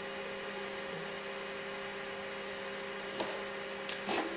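Steady hum of a running Apple Lisa 2/5 and its ProFile hard disk, a few low steady tones over a faint hiss. Near the end come a couple of sharp clicks of the Lisa mouse button.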